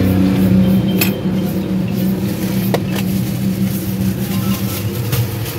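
A steady engine hum, with two sharp clinks about one and three seconds in.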